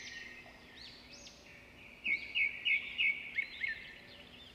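Small birds chirping steadily in the background, with a louder run of about six quick, sharp chirps about two seconds in.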